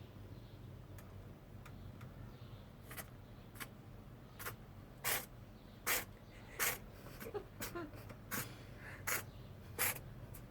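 Small kitten sneezing over and over in a rapid fit, about ten short, sharp sneezes well under a second apart, beginning faintly about three seconds in and growing louder.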